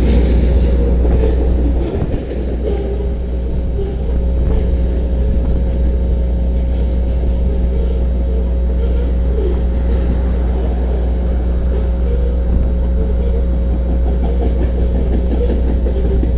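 Freight train rolling past, with a steady low diesel locomotive rumble.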